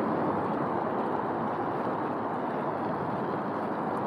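Steady rushing noise of a bicycle ride through a concrete tunnel: air and rolling noise from the moving bike, with no distinct events.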